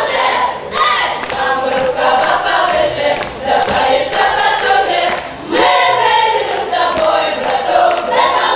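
Russian folk choir of children and women singing together, with a short dip in the singing a little after halfway.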